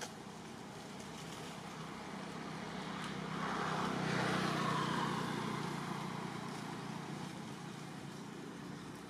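A motor vehicle passing by, its noise swelling to a peak about four to five seconds in and then fading away.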